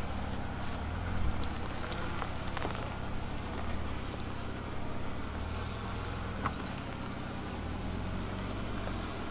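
Ford Ranger Raptor engine running at low revs as the pickup creeps down a rocky, rutted trail, with scattered clicks and knocks of stones under the tyres.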